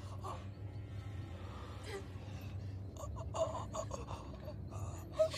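A person gasping and breathing unsteadily over a low steady hum, with a few sharper gasps past the middle and near the end.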